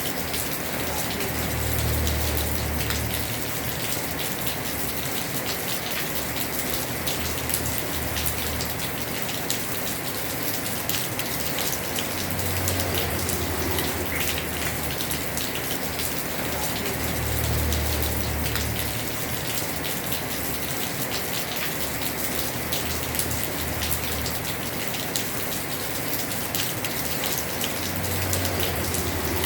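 Heavy rain falling on a house roof: a steady dense patter of drops, with a low rumble that swells and fades four times.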